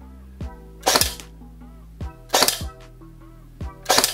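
ARES L85A3 airsoft electric gun firing single shots through a chronograph: three sharp shots about a second and a half apart, each with the gearbox cycling. A music track with a steady beat plays underneath.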